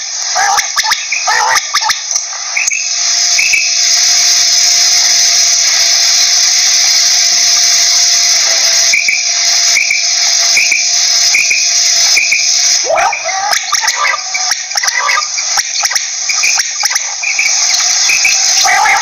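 Quail calling: short chirping notes repeated in runs, with a clear run of about six evenly spaced chirps past the middle, over a constant high hiss.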